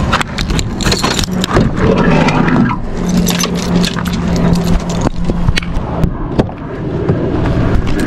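Van doors being opened by hand: a run of latch and handle clicks, knocks and scraping as the sliding side door is pulled open on its track and the front door is opened, with keys jangling.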